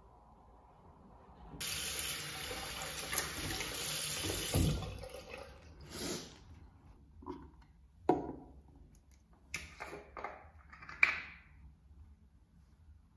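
Bathroom sink tap running in a steady gush for about three seconds, then shut off, followed by several short splashes and rubbing sounds as hands are washed over the basin.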